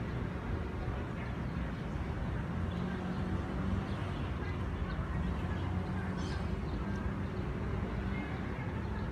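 Steady low rumble of motor traffic, with a few faint high chirps over it.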